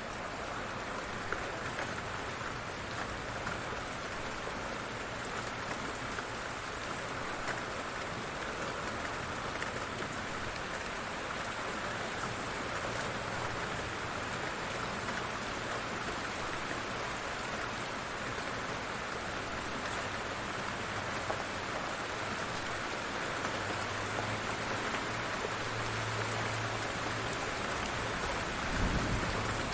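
Heavy rain falling in a steady, even hiss of many drops. A brief low thump comes near the end.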